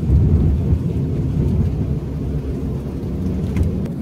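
Airbus A380 takeoff roll heard from inside the passenger cabin: a steady, heavy low rumble of the engines at takeoff thrust and the wheels running on the runway as the aircraft accelerates.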